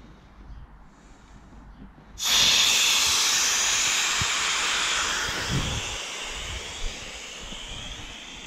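Air rushing out of a Duotone wingfoil wing's inflated leading-edge bladder through its opened deflate valve. A loud hiss starts suddenly about two seconds in and slowly fades as the wing empties.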